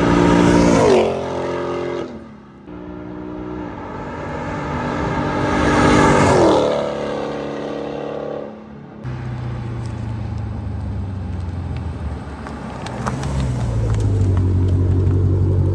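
Two fast vehicle pass-bys. Each engine note swells and then drops in pitch as it goes past, the first about a second in and the second about six seconds in. Then a car engine idles close by with a low, steady rumble that steps up in pitch around thirteen seconds in.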